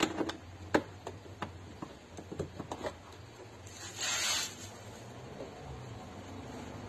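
Sharp plastic clicks from the window-switch buttons and switch panel of a Seat Leon door armrest as a hand presses and works them, several in the first three seconds. A short hiss follows about four seconds in.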